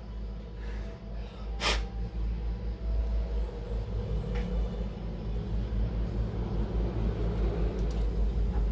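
A low, steady rumble with a faint hum, and a single sharp click just under two seconds in.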